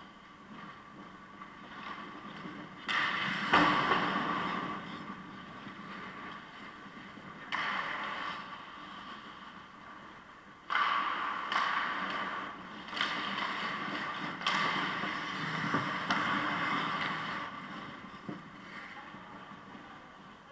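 Hockey skate blades scraping the ice in a series of hissing scrapes, each starting sharply and fading over a second or two, with a few short sharp knocks in between.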